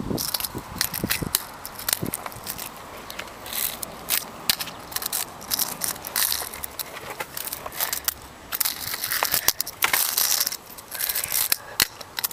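Fingerboard rolling and grinding over rough concrete, its small wheels scraping along the gritty surface, with many sharp clacks as the deck is popped, lands and knocks against the concrete.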